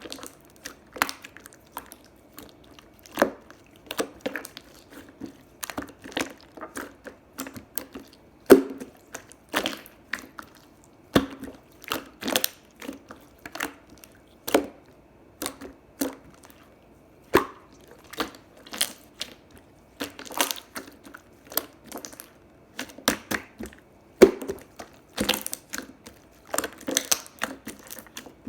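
Clear slime being worked, making irregular sharp sticky clicks and pops, one to three a second.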